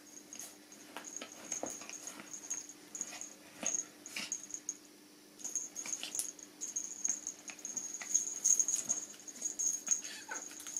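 Two small Japanese Terriers play-fighting on a blanket-covered sofa: scuffling, rustling and short clicks from paws and mouths, busier in the second half, with dog sounds among them. A thin high tone comes and goes.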